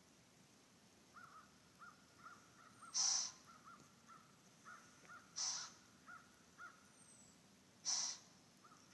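A deer snorting (blowing) in alarm: three loud, sharp blows about two and a half seconds apart. Faint quick chirps run in between.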